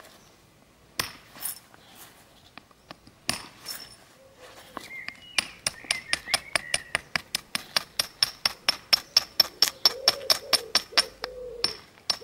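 Flint being worked with a knapping tool: a few single sharp clicks, then from about five seconds in a quick, even run of glassy clicks, about four a second.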